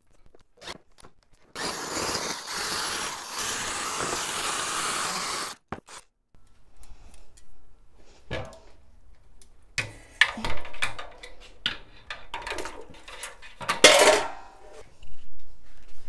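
Corded drill driving a roller grain mill, crushing malt, runs steadily for about four seconds and stops suddenly. It is followed by scattered knocks, clatters and scrapes of a stainless mesh mash basket and plastic buckets being handled.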